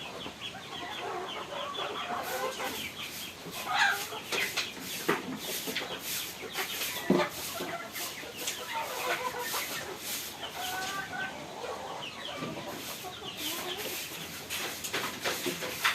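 Chickens clucking, over a run of short scratchy strokes that starts about two seconds in, with a couple of sharper knocks among them.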